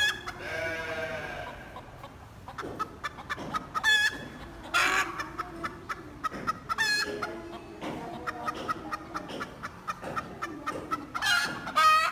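Chickens clucking in a fast series, with several louder, high-pitched squawking calls breaking through.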